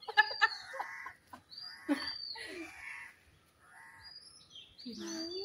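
Chickens clucking, with a short high bird call repeating several times.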